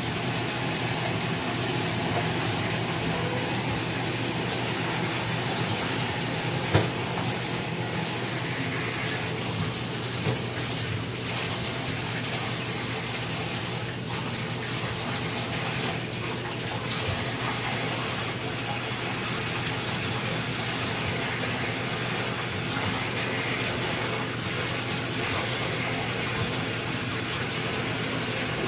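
Bathtub tap running steadily, filling the tub with water, with a single sharp knock about seven seconds in.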